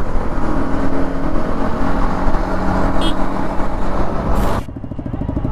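Yamaha MT-15's 155 cc single-cylinder engine and exhaust running under way, with wind rush over the helmet microphone. Near the end the rider rolls off and the engine drops to a slow, pulsing putter.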